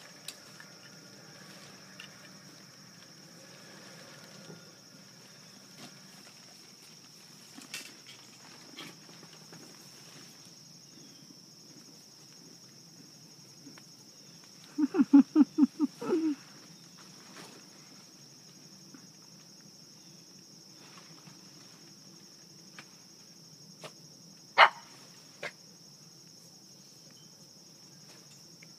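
Steady high-pitched chirring of insects throughout, with scattered light clicks and rustles from a pop-up tent's fabric and poles being handled. Halfway through there is a brief run of about seven loud rapid pulses, and near the end one sharp snap.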